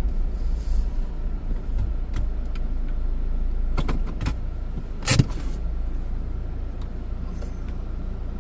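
Car running, heard from inside the cabin as a steady low rumble, with a few sharp clicks around four seconds in and a louder click just after five seconds.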